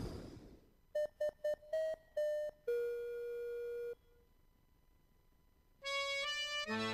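Opening theme music. A whoosh fades out, then comes a phrase of short clipped notes ending on a held note, a pause of about two seconds, and near the end a quick rising run of notes leading into the full tune.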